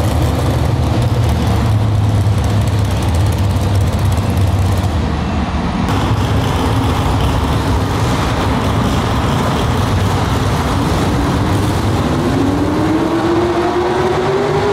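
Modified Chevrolet pulling trucks' engines running loud. For the first few seconds a heavy, steady engine drone, then after a cut another truck's engine revs with a steadily rising pitch over the last few seconds as it starts dragging the weight sled.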